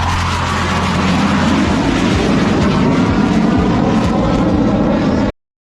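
Jet aircraft of the Surya Kiran display team, BAE Hawk trainers, making a loud, steady rushing jet noise as they fly past. The sound cuts off suddenly about five seconds in.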